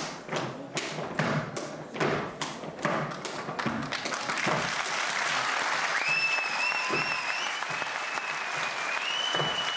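Dancers' boots stamping on a wooden stage, about two heavy thuds a second, without music. About four seconds in, applause breaks out, and from about six seconds a shrill, wavering whistle of approval rises over the clapping.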